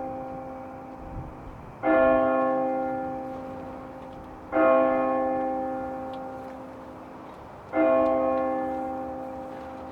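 A single church bell striking twelve o'clock: three strokes about three seconds apart, each ringing on and slowly fading before the next.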